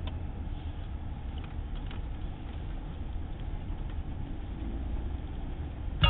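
Steady low rumble of a car's engine and tyres heard inside the cabin while driving, with a few faint clicks.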